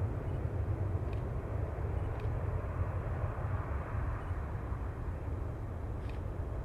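Boeing 767-300ER twin jet engines giving a steady, deep rumble heard from beside the runway, easing off slightly in level.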